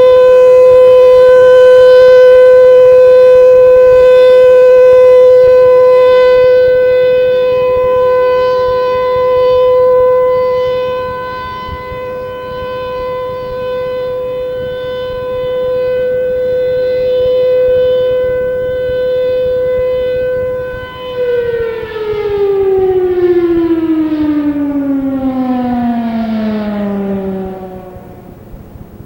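Federal Signal Thunderbolt 1000 civil defense siren sounding the alert signal, a steady high-pitched wail that slowly swells and fades in loudness as the rotating head turns. About 21 seconds in the power is cut and the siren winds down, its pitch sliding steadily lower as it fades out near the end.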